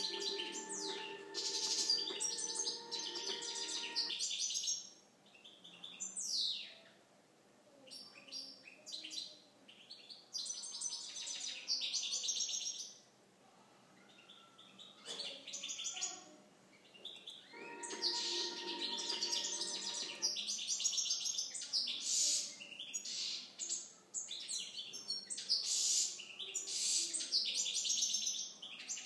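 European goldfinch of the Balkan subspecies (Carduelis carduelis balcanica) singing: fast, high twittering and trilling phrases with short pauses between them. A steady hum sounds under the song at the start and again about two-thirds of the way through.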